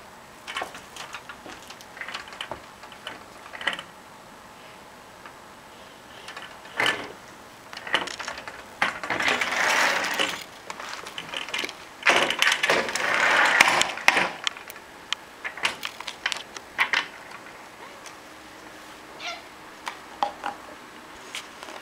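Close handling noises: scattered light clicks and taps, with two longer rustling stretches about nine and twelve seconds in.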